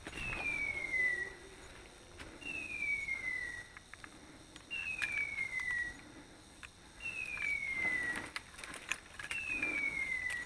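Electronic beeper collar on a hunting dog sounding a falling whistle-like tone five times, each about a second long, at a steady interval of just over two seconds. Footsteps and rustling through leaf litter in between.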